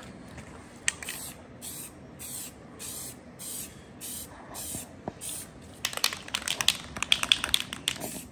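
Aerosol spray paint can hissing in short bursts, about two a second, as a rifle is spray-painted. About six seconds in, a quick run of sharp clicks, louder than the spraying, lasts about two seconds.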